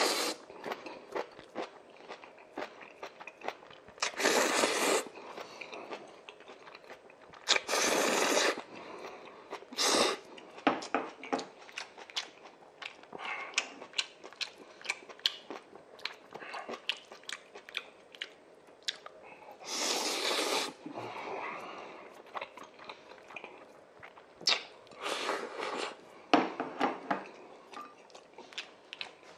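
A person eating Chapagetti black-bean noodles with chunks of beef sirloin: steady wet chewing with many small mouth clicks and smacks, broken several times by louder noisy slurps that each last about a second.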